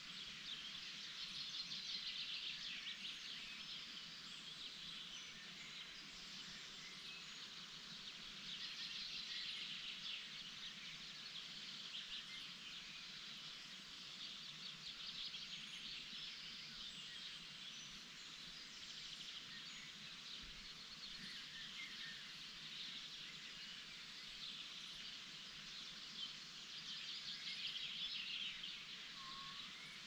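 Dawn chorus of many small birds chirping and twittering together, swelling and fading in waves every few seconds, over a faint steady low hum.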